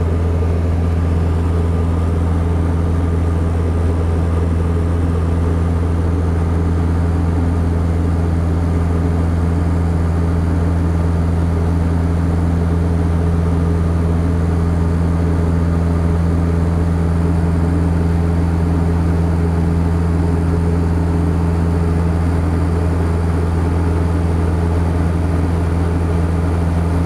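Small plane's engine and propeller droning steadily in cruise, heard inside the cabin, with a strong low hum that never changes.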